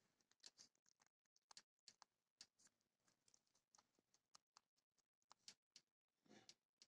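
Domestic rabbit chewing a strawberry and leafy greens: faint, irregular crunching clicks, several a second.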